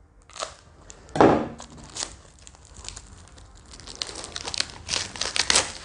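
Dense plastic shrink film wrapped around cardboard player boards being torn open and crinkled by hand: irregular crackling, loudest about a second in and again near the end.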